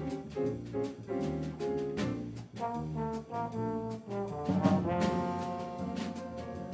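Trombone playing a jazz melody over piano, electric bass and drums, holding one long note about halfway through.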